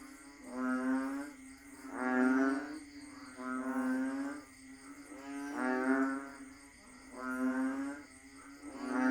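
A chorus of banded bullfrogs (Asian painted frogs) giving long, low, droning calls. Several frogs call in turn, about one call every one and a half to two seconds.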